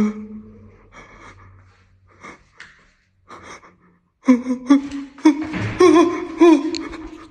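A man's voice: faint breaths at first, then from about four seconds in, loud, wavering gasps and cries of fright.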